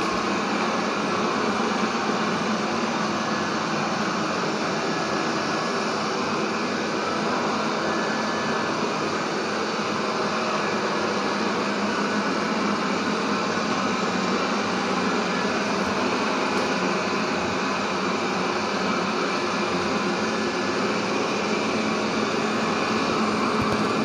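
360 S7 robot vacuum running as it cleans along the wall edge: a steady whir of its suction fan and brushes, with a low hum underneath.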